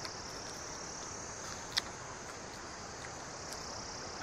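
Steady high-pitched chirring of crickets or similar insects, with a single short click a little under two seconds in.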